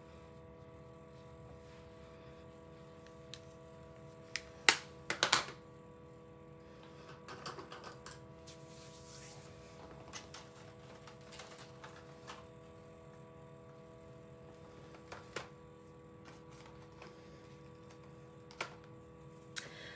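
Small objects being handled: a few sharp clicks and knocks, the loudest a quick cluster about five seconds in, and a brief soft rustle a couple of seconds later, over a faint steady electrical hum.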